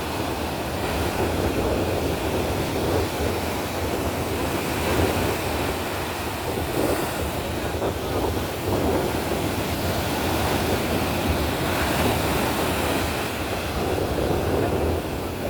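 Indian Ocean waves washing in, a steady rush that swells and eases, with wind buffeting the microphone.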